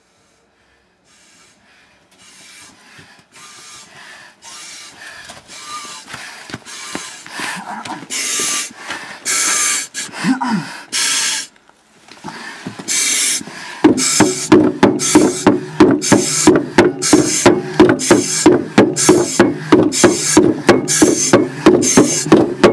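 Heavy, rhythmic breathing of a firefighter in turnout gear, hissing breaths that grow steadily louder. About two-thirds through, a loud, fast run of knocks begins, several a second.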